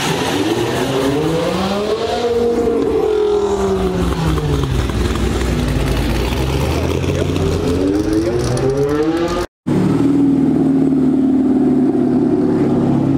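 Pontiac GTO's V8 revving as the car pulls away, its pitch rising and falling twice. After a sudden cut about ten seconds in, another car's engine runs at a steady pitch.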